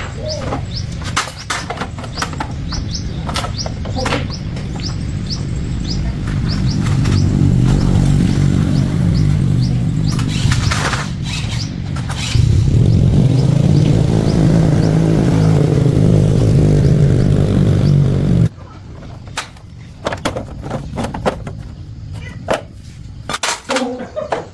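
Honda 110 motorcycle's small single-cylinder engine running, growing louder with a step up about twelve seconds in, then cutting off suddenly about eighteen seconds in. Birds chirp throughout.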